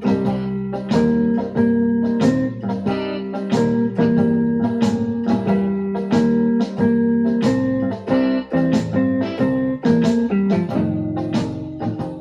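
Blues played on an electronic keyboard: sustained chords and a melody line over a steady beat.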